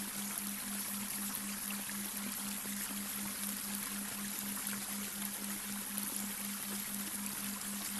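Babbling brook: water trickling and splashing in a steady hiss, under a steady low delta-wave binaural beat tone that pulses evenly about four times a second.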